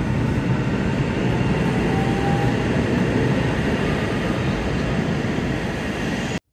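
Ottawa O-Train Line 1 light-rail train (Alstom Citadis Spirit) running through the station: a steady rumble with a faint brief whine about two seconds in, cut off suddenly near the end.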